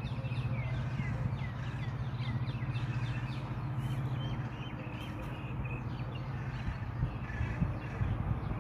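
Small birds chirping: many short, quick falling chirps, most of them in the first half, over a steady low hum.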